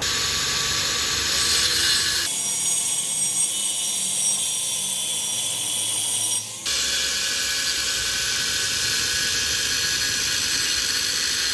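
Electric arc welding: a steady, high crackling hiss of the arc that changes abruptly in tone twice.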